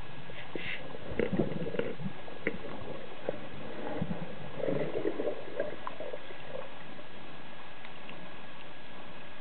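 Underwater sound heard through the camera housing during a freedive: a steady hiss with scattered small clicks and two short clusters of gurgling, bubbly sounds, about a second in and again near the middle.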